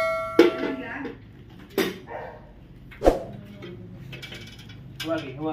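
Metal clanking during air-conditioner installation work on a ladder: a ringing metallic clang dies away over the first second, then a few separate sharp knocks of tools or hardware against metal.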